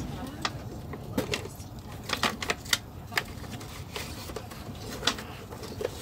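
Irregular clicks and taps of a small cardboard toy box being opened and handled, over the steady low rumble of a moving train.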